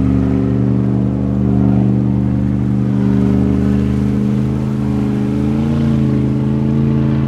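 Powerboat engine running loud and steady at low speed, its pitch holding level apart from a brief wobble about five and a half seconds in.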